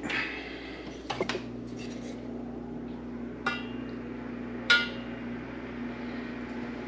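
Metal kitchenware clinking: a handful of sharp, ringing clinks of a utensil against a pot, the loudest about two-thirds of the way through, over a steady low hum.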